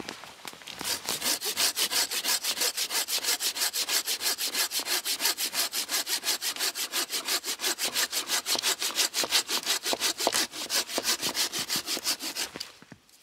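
A hand saw cutting through a dead wooden branch in rapid, even back-and-forth strokes. The sawing starts about a second in and stops just before the end.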